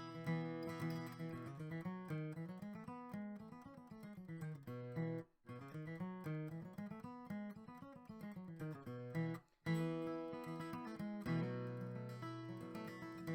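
Outro music: acoustic guitar picking runs of notes that rise and fall, breaking off briefly twice.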